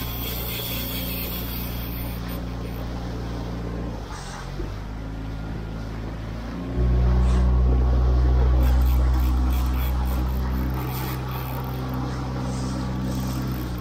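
Small outboard motor running under way, its steady drone mixed with rushing water and wind. It gets markedly louder about seven seconds in and eases back a few seconds later.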